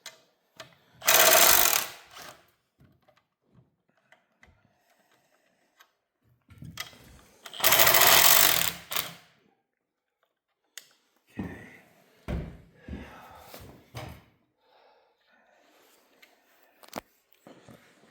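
Impact wrench running in two short bursts, about a second each and several seconds apart, loosening bolts on the engine. These are followed by a few metal clanks and knocks of parts being handled.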